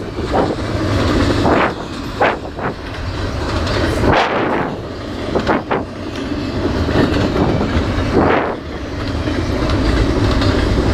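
Double-stack intermodal container train rolling past: a steady low rumble of wagon wheels on the rails, with irregular sharp clacks and clanks every second or two.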